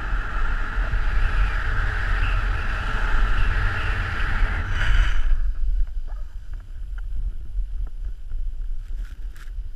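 Wind buffeting the microphone of a pole-mounted camera, with the hiss of a snowboard sliding through powder snow, which stops about five seconds in. After that there is a lighter wind rumble and a few faint clicks.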